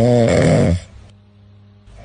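A sleeping dog snoring: one long, steady, droning snore that stops under a second in, followed by a quiet pause before the next breath.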